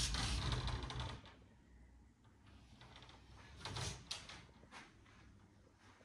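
Mirrored sliding wardrobe door in a metal frame, running along its track with a low rumble for about a second. A few short knocks and rattles follow about four seconds in.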